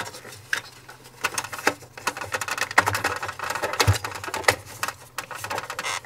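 Plastic parts of a space heater's base being handled: the bottom cover and the zip-tied safety switch bracket knock and click irregularly against each other.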